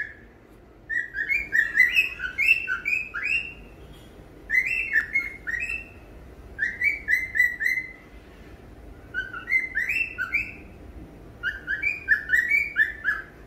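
Male cockatiel singing: five runs of quick, chirpy whistled notes, each lasting one to two and a half seconds, with about a second's pause between them.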